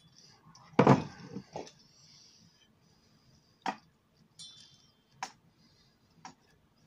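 A loud thump about a second in, a smaller knock just after, then three sharp clicks spread over the next few seconds.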